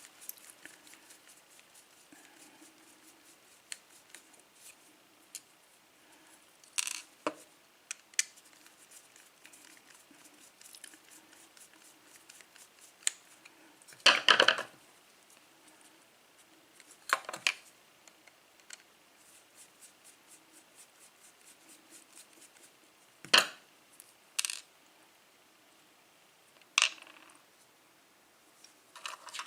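Small metal clicks and scrapes as a screwdriver works the screws out of a Lockwood padlock and the metal parts are handled and set down, a handful of separate sharp clinks, the loudest about halfway through.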